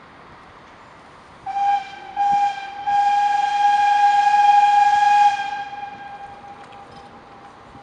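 Narrow-gauge steam locomotive whistle: two short toots, then one long blast of about two and a half seconds on the same steady high note, dying away over a couple of seconds.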